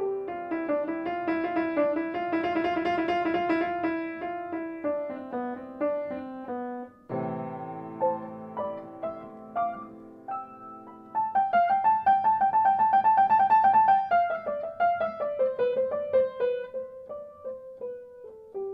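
Solo piano music playing quick runs of repeated notes, loudest a little past the middle, then stepping down.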